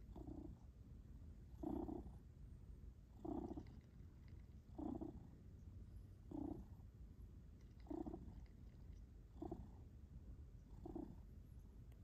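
Domestic cat purring close up, with a louder swell about every one and a half seconds.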